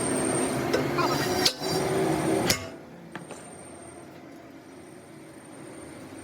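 Two sharp hammer blows on metal about a second apart, over steady workshop machine noise that cuts off abruptly right after the second blow. A fainter click follows.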